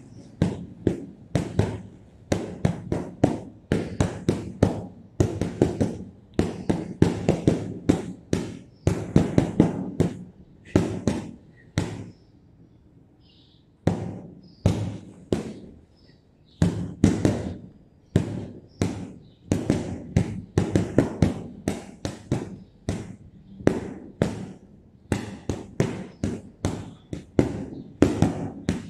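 Boxing gloves hitting a hanging heavy punching bag in quick combinations, several sharp smacks a second, with two short pauses about halfway through.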